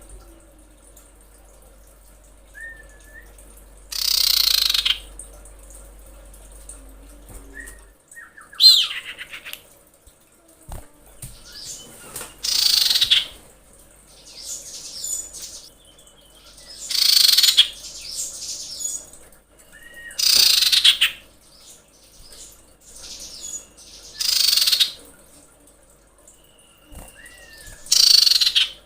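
Female common iora calling: loud calls about a second long, repeated roughly every four seconds, with faint short notes between them. These are the calls of a female in breeding condition calling a male.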